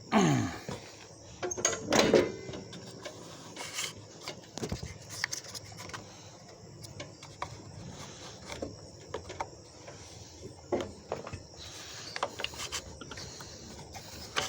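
Scattered clicks, knocks and scrapes of hand work on a lawn mower's flywheel and ignition coil, with two short louder sounds falling in pitch near the start and about two seconds in.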